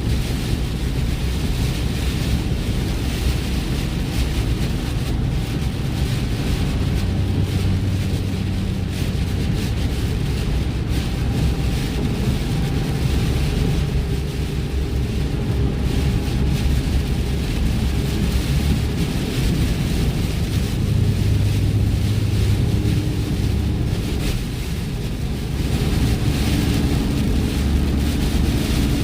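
Steady road noise of a vehicle driving on a rain-wet highway: a low engine and tyre drone under a hiss of tyres on wet pavement, easing briefly about 25 seconds in.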